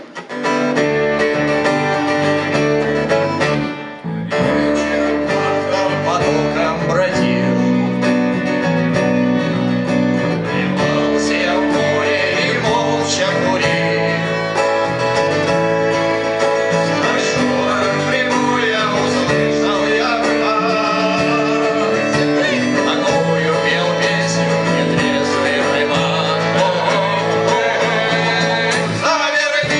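Band playing the announced song: dense music that starts at once, breaks off for a moment about four seconds in, then carries on steadily.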